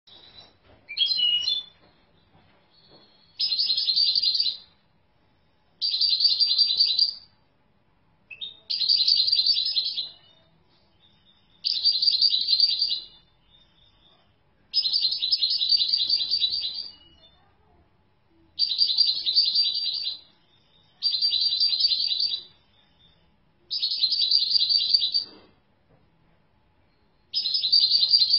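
European goldfinch singing: about ten short bursts of high, twittering song, each a second or two long, repeated every two to three seconds with quiet gaps between.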